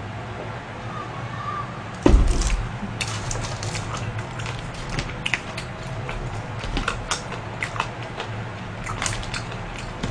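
A plastic soda bottle set down on the table with a thump about two seconds in. Then a run of small clicks and crinkles as fried chicken wings are handled in a cardboard box.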